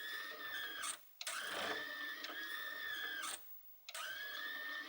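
Toshiba Samsung optical disc drive tray moving in and out, its motor and rails giving a steady high squeal. There are three runs: one ends about a second in, the next lasts about two seconds, and a third starts near the end. The squeal comes from the tray's rails running short of grease, which the owner puts down to age and expects a re-greasing to cure.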